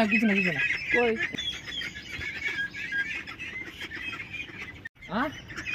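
Domestic white ducks calling, with pitched, bending quacks in the first second or so and a busy chatter of short high-pitched peeps running behind them. The sound drops out abruptly near the end, and more calls follow.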